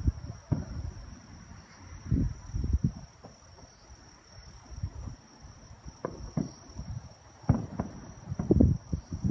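Distant fireworks going off in an irregular string of low booms and pops, clustered and loudest in the second half. A steady high insect trill, typical of crickets, runs underneath.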